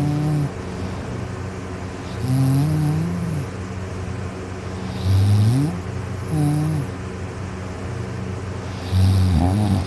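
A sleeping person snoring loudly, several high-pitched tonal snores a couple of seconds apart, each sliding up or down in pitch. A steady low hum runs underneath.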